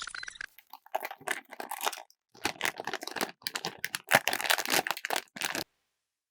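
Blind bag packaging crinkling and crackling as it is handled and torn open, in dense irregular bursts that stop abruptly near the end. The tail of a rising electronic sound effect ends about half a second in.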